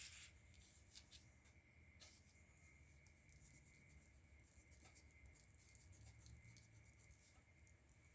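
Faint paper and pencil handling over near silence: a sheet of drawing paper set down and slid on a hardboard drawing board, with light scratches and a few soft taps of a pencil and eraser pen. The taps come at the start and about one and two seconds in.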